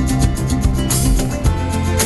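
Background music with a quick, steady beat.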